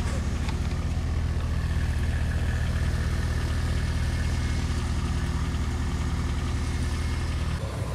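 Two car engines idling together just after cold starts, a steady low drone. Near the end the low drone drops in level.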